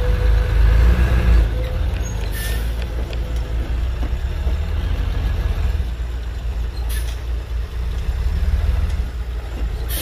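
Hyundai dump truck's diesel engine running with a heavy low rumble, working under load as the raised bed tips out soil, swelling about a second in and again near the end. Two brief hisses of air come about two and a half and seven seconds in.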